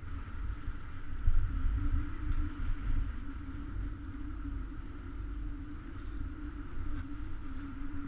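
Wind rumbling against a GoPro camera's microphone on a moving chairlift, with a steady, even hum under it.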